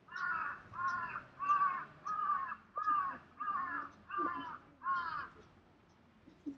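A crow cawing: eight calls in a steady series, about one and a half a second, each dipping slightly in pitch.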